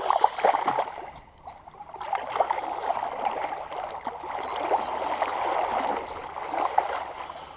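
A hooked brown trout splashing and thrashing at the water's surface at the bank. About two seconds in, the splashing gives way to a steady rustling and scraping of grass as the fish is hauled onto the bank and handled.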